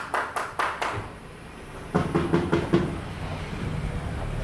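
A hand knocks on a metal house gate, several quick blows in the first second. About two seconds in, a short call from a voice follows, with a low steady hum under it.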